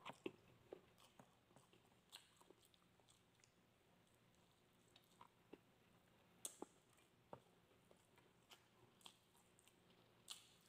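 Faint, close chewing of grilled skewered meat: a dozen or so short, soft mouth clicks at uneven intervals, with near silence between them.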